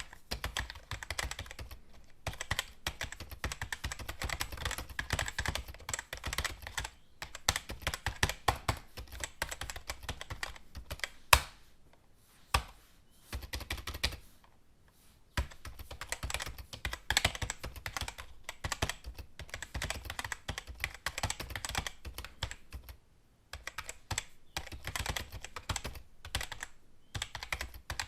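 Typing on a computer keyboard: quick runs of keystrokes broken by short pauses, with one or two single louder key strikes about midway.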